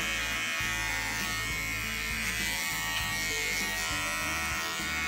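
Small Wahl Bravmini cordless pet trimmer running steadily as it clips the hair between a dog's paw pads.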